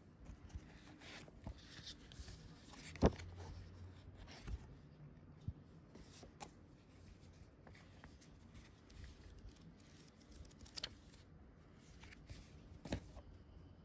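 Paper leaflets and instruction cards rustling and shuffling as they are handled, with scattered light taps and knocks. The loudest knock comes about three seconds in.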